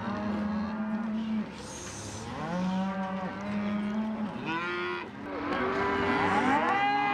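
Cattle mooing: a string of long calls one after another, with several calls overlapping near the end.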